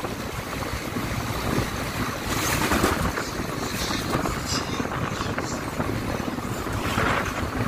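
Wind rushing over the microphone of a moving car, with engine and road noise underneath, steady with brief louder gusts.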